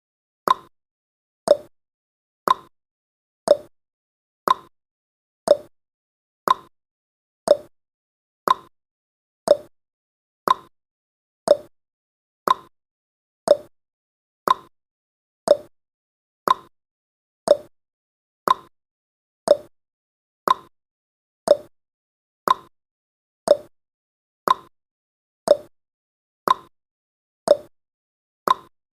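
Clock tick-tock sound effect of a countdown timer: one sharp tick every second, alternating a higher tick and a lower tock.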